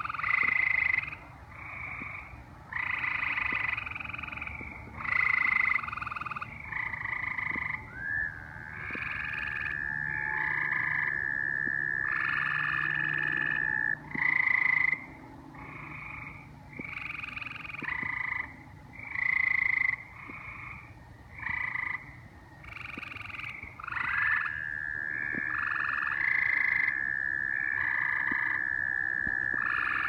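A chorus of tree frogs giving short calls about a second long, one after another and overlapping. American toads twice give a long, steady, high trill lasting about six seconds, starting about eight seconds in and again near the end.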